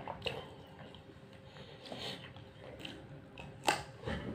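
A person chewing a mouthful of chicken biryani eaten by hand, with small wet mouth sounds and scattered soft clicks of fingers working rice in a plastic takeout container. A sharper click near the end.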